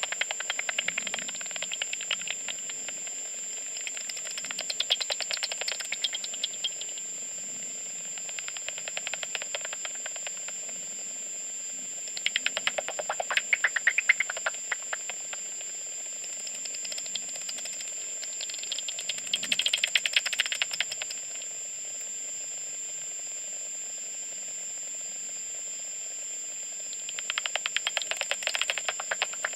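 Bat echolocation calls made audible by a homemade bat detector: rapid streams of clicks in bursts of one to three seconds, about five times, as bats fly past. A steady high tone and hiss run underneath.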